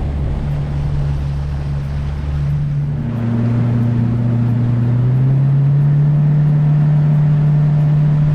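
New outboard jet boat motor running under way while being broken in at varying speeds. Its steady engine note drops about three seconds in and climbs again about five seconds in.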